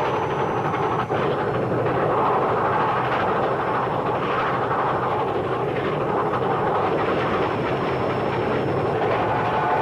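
A train running, heard as a steady, dense rumble and rattle, with a brief dropout about a second in.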